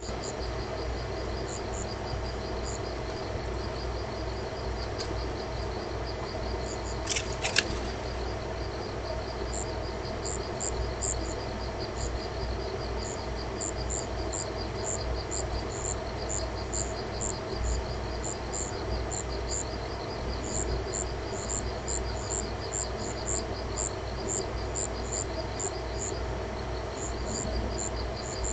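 Night insects chirping in rows of short, quickly repeated high-pitched pulses at two different pitches, over a steady hiss. A few sharp clicks about seven seconds in.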